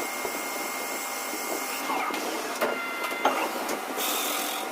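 CNC machine running: a steady mechanical hiss and whir with faint high whining tones, broken by a few short clicks and knocks in the second half.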